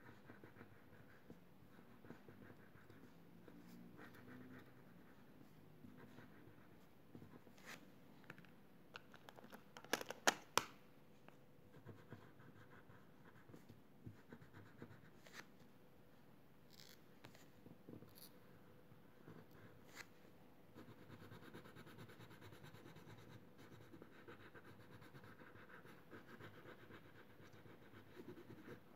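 Faint scratching of a crayon colouring in on paper, in short irregular strokes. A few sharp clicks, the loudest sounds, come close together about ten seconds in.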